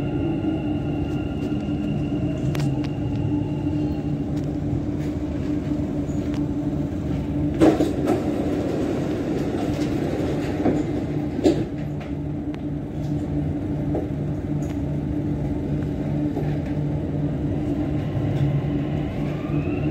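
Dubai Metro train running through a tunnel, heard from inside the car: a steady rumble of wheels on rail under a low, even electric motor hum. There are a few sharp knocks about eight and eleven seconds in, and near the end the motor hum starts to rise in pitch.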